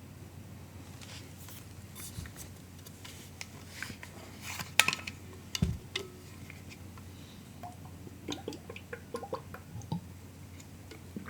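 Soft MacBook keyboard keystrokes in short, irregular bursts of typing, with pauses between them. The loudest cluster is about five seconds in, followed by a dull low thud.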